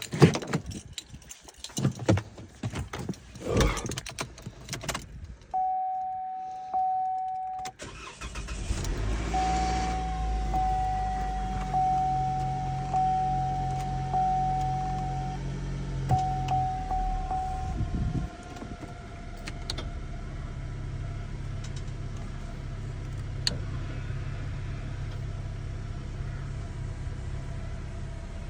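Chevy Malibu's first start after an oil change: a few knocks and a jingle of keys, a steady dashboard warning chime, then the engine starts about eight seconds in. It runs at a fast idle with the chime pulsing about once a second, then settles to a steady idle around eighteen seconds in.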